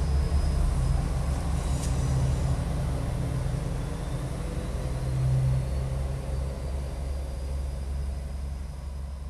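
Low, steady diesel engine rumble of a KiHa 40-series railcar, slowly fading away.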